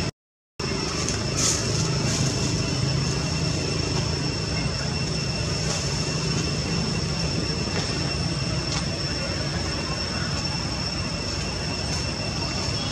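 Steady outdoor background noise: an even hiss and low rumble with two thin, steady high-pitched tones running through it. The sound cuts out completely for about half a second at the very start.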